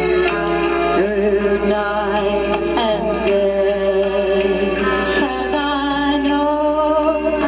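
Background music: a slow melody with vibrato over held chords.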